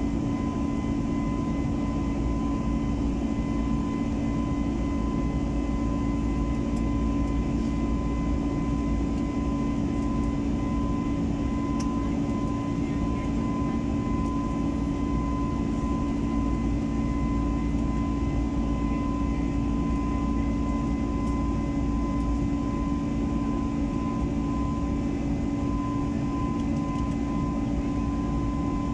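Jet airliner cabin noise during the climb: the steady drone of the engines and airflow, a low rumble with a constant hum and a fainter high steady tone, unchanging throughout.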